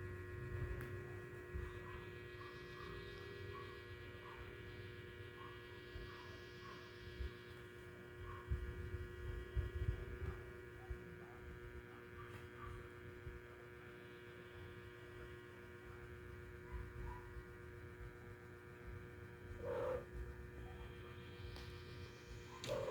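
Quiet, steady electrical hum made of several constant tones, over a faint low rumble, with scattered small soft sounds and one short sound near the end.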